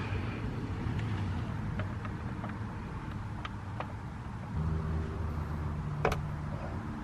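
A motor vehicle engine running steadily, with a deeper pitched hum coming in about halfway through. A few light clicks sound over it, the clearest about a second before the end, as the steering-column trim pieces are put back on.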